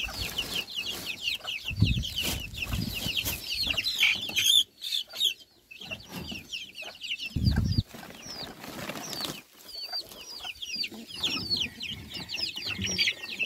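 Chicks peeping without a break, many short high falling peeps a second, with a few brief low bumps mixed in.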